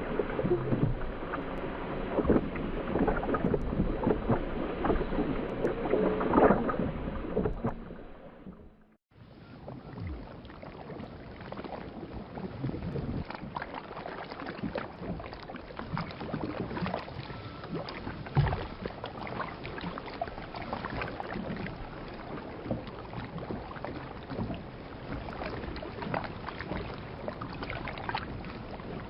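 Underwater water ambience: muffled water movement with a dense crackle of small bubbles and splashes. It fades out about eight seconds in, and a second, quieter underwater recording of the same kind begins a second later.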